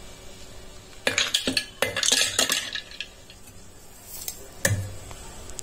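Ice cubes dropped into a stainless steel mixer jar of milk, clinking against the metal in a quick run of hits lasting about two seconds. One more duller knock comes near the end.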